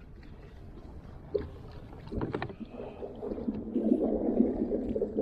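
Water splashing and sloshing against a kayak hull, getting louder about three seconds in, with a few sharp knocks just before.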